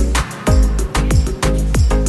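Background music with a steady beat of deep kick drums and a bass line.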